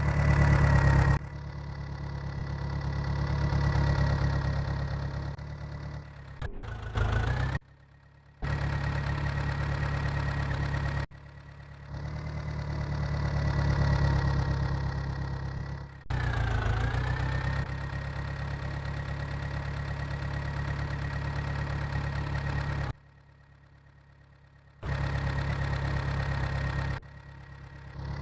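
An engine idling steadily, rising and falling in level, broken by several abrupt cuts and two short quiet gaps.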